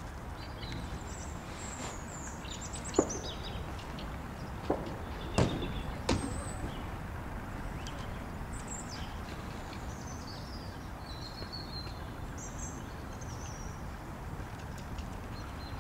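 Birds chirping over a steady low outdoor noise, with four sharp knocks between about three and six seconds in.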